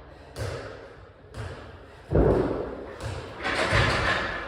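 A run of irregular thuds and knocks, the loudest about two seconds in, with a rustling noise between them.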